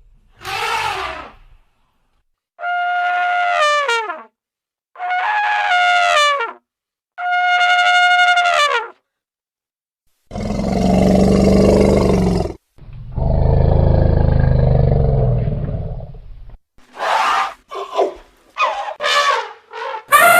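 Elephant calls: a short call, then three trumpet blasts of about a second and a half each, then two longer, deep roars, and a quick run of short calls near the end.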